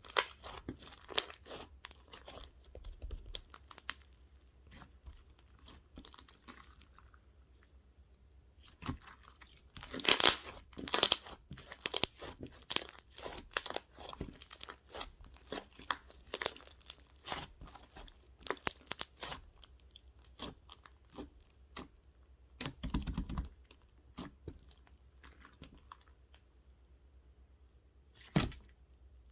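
Close, irregular crunching, crinkling and clicking sounds with quiet gaps between them. There is a dense cluster of sharp crackles about ten seconds in and a duller low thump past the middle.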